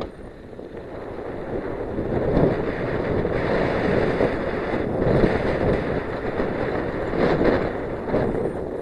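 Wind buffeting the microphone over the rumble and crunch of a Giant Glory downhill mountain bike's tyres on loose dirt and rock, riding fast downhill; the noise swells and eases unevenly.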